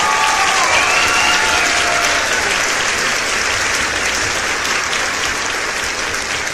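Crowd applauding and cheering, with a few voices whooping over the clapping in the first couple of seconds.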